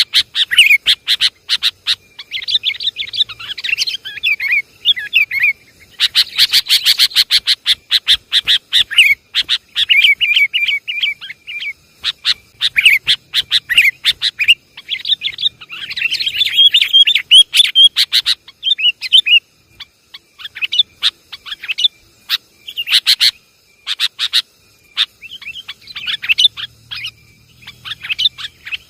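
Sooty-headed bulbuls (kutilang) calling noisily. Bursts of rapid, sharp chipping notes alternate with bubbly, warbling phrases, broken by short pauses.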